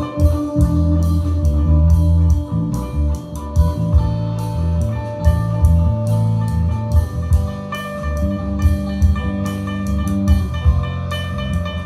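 A band track with drum kit, bass and guitar, played back through a Yamaha DXR8 powered speaker for a sound demo.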